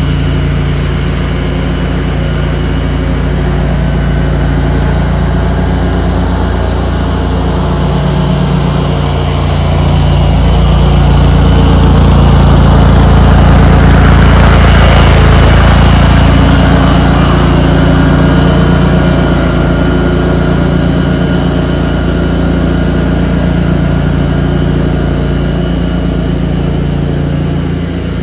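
Cub Cadet 106 garden tractor's single-cylinder Kohler engine running steadily under throttle, growing louder about ten seconds in and easing back down a few seconds later.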